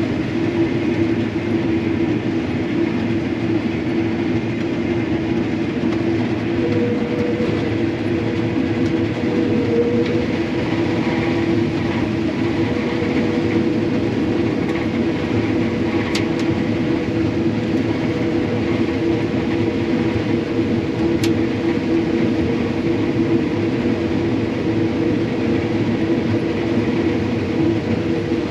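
Combine harvester running steadily while harvesting soybeans: a continuous engine and threshing drone with a steady hum.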